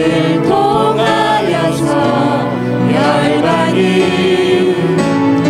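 Church praise team and congregation singing a Korean worship song together, over sustained instrumental accompaniment.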